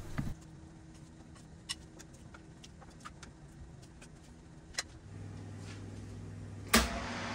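A few faint clicks of food and tongs on a metal baking tray. Then a low steady hum from the preheated oven, and near the end a sharp clunk as the oven door is pulled open, after which a steady hiss is heard along with the hum.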